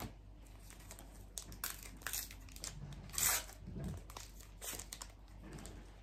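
Foil wrapper of a Panini Adrenalyn XL trading card pack being torn open and crinkled by hand: a run of short crackling rips and rustles, loudest about three seconds in.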